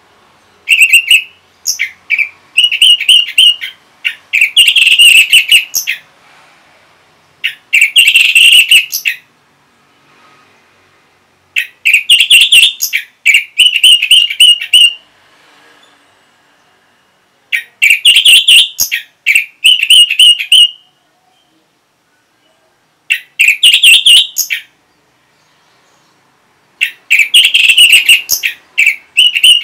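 Orange-headed thrush (anis merah) singing loud, rapid phrases of song in six bouts separated by short pauses.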